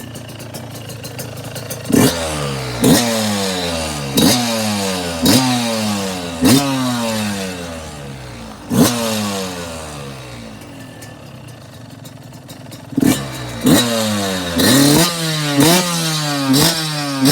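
2022 Yamaha YZ125's single-cylinder two-stroke engine, fitted with an FMF Fatty expansion chamber and Shorty silencer, being blipped again and again. Each blip is a sharp rev whose pitch falls back to idle. There are about six quick blips after about two seconds, a few seconds at idle, then about five more near the end. The exhaust sounds crisp.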